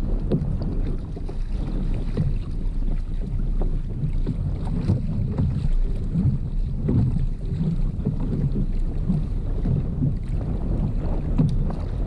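Wind rumbling on the microphone over water lapping against a fishing kayak's hull, an uneven low rumble with faint scattered ticks.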